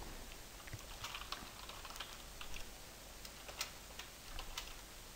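Typing on a computer keyboard: faint, irregularly spaced keystroke clicks.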